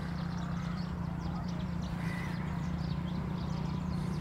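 Outdoor orchard ambience: a steady low hum under scattered short, high chirps.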